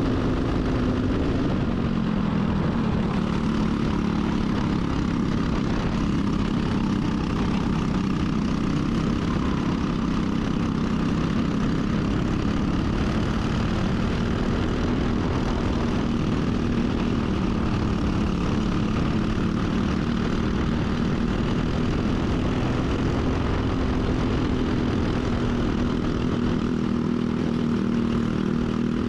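Briggs & Stratton four-stroke kart engine running hard at high revs, its pitch wavering slightly up and down without a break.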